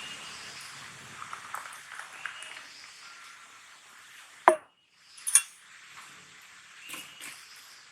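Scattered light clicks and taps, with one sharp knock about halfway through that is the loudest sound, over a soft rain hiss that fades early on.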